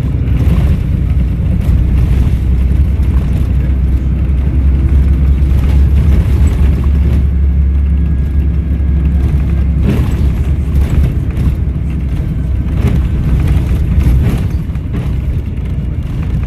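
Volvo B7RLE single-deck bus's six-cylinder diesel engine running under way, a heavy low drone with a few knocks and rattles from the body.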